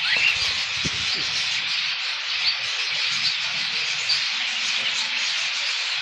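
A flock of budgerigars chattering together, a dense steady warble with a few sharper chirps standing out.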